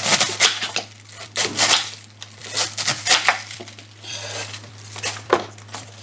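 Kitchen knife slicing through a wedge of raw cabbage on a wooden cutting board: a string of short, crisp crunching cuts at an uneven pace.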